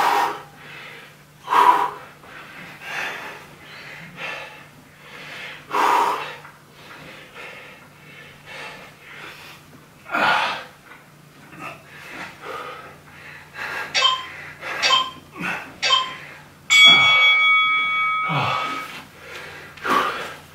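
A man breathing hard while exercising, with forceful exhalations every few seconds. Near the end, an interval timer gives three short beeps and then a longer steady beep, marking the end of the work period.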